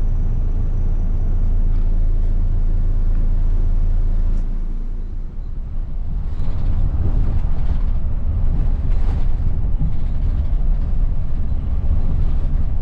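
Intercity coach's diesel engine running with a low, steady rumble inside the cabin. A little over four seconds in, it gives way to the rougher, uneven rumble of the coach on the move along a highway.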